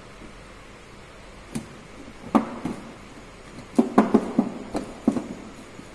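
Kitchen knife cutting through a walnut chocolate brownie slab, the blade knocking sharply against the hard counter under the baking paper: a few separate knocks, then a quick cluster of them near the middle.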